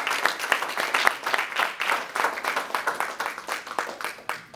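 A roomful of people applauding, many hands clapping together. The clapping fades over a few seconds and stops near the end.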